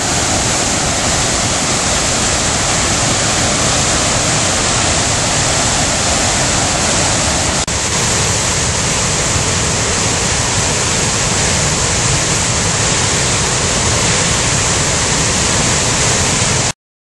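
Floodwater from a river in spate rushing over rocky rapids: a loud, steady whitewater rush. It dips briefly about eight seconds in, then resumes and cuts off suddenly near the end.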